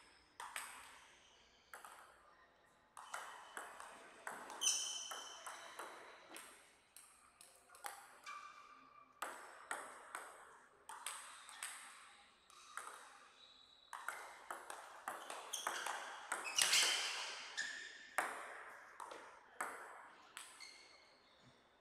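Table tennis rallies: the ball clicks sharply off the bats and the table in quick back-and-forth runs, with short pauses between points.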